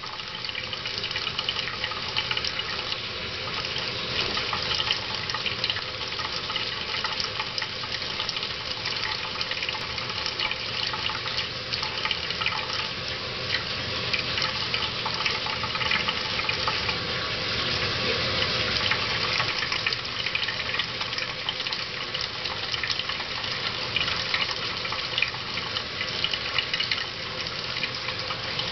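Thin stream of water running steadily from a washbasin tap into the sink, with many small splashes as a budgerigar bathes in a shallow dish beneath it.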